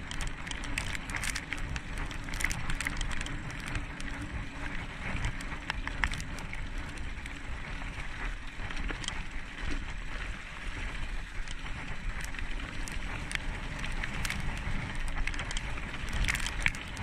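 Bicycle rolling over a leaf-covered dirt trail: steady tyre noise and low rumble, with frequent small clicks and rattles.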